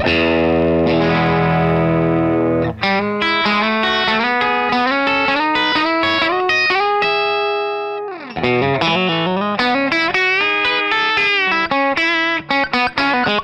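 Fender Telecaster electric guitar played through an amp: a lead line of picked single notes and bends, with a long held note that fades about eight seconds in, then quicker runs.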